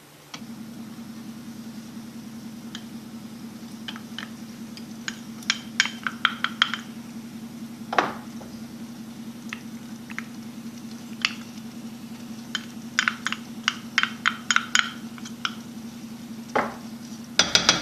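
Wooden spoon tapping and scraping against a stainless-steel saucepan in scattered clicks and knocks, as pesto and tomato purée are knocked off the spoon into the sauce. A steady low hum runs underneath.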